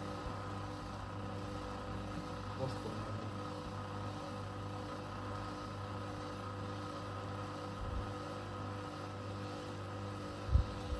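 Elin washing machine running in a spin, its motor giving a steady hum and whine. A low thump comes near the end.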